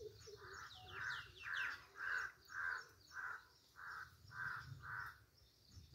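A crow cawing in a steady series of about nine caws, roughly two a second, with fainter high, falling chirps from other birds in the first two seconds.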